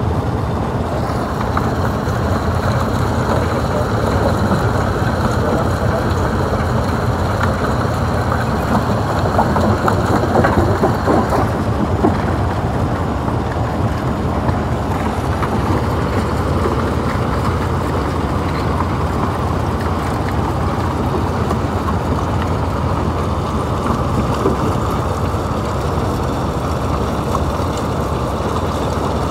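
Stone crusher running under load: a steady low machine rumble with dense crackling and cracking of rock being broken, with a few louder cracks about ten seconds in.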